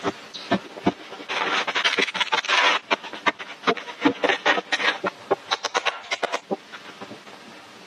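Quick, irregular knocks and scraping from hand tools working soil and wooden posts, with a longer scrape about a second and a half in.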